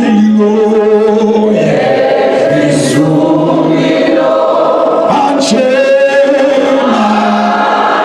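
Church congregation singing a gospel chorus together, many voices holding long notes that change pitch every second or two.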